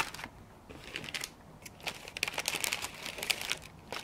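Cardboard boxes and plastic bags of parts being handled: irregular rustling, crinkling and small clicks.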